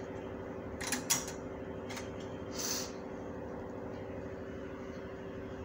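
A few light clicks and a short scrape of stainless steel surgical instruments handled in a metal tray, about a second in and again near two and three seconds, over a steady hum.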